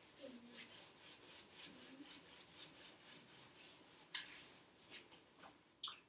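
A small scrub brush scrubbing a greasy painted wooden cabinet door in quick, even strokes, about three a second, loosening built-up kitchen grease with surface cleaner. Faint, with a sharp click about four seconds in.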